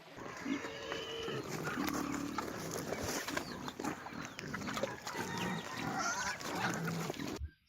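Farm animals calling, a busy jumble of short grunts and cries over a noisy background, cutting off abruptly near the end.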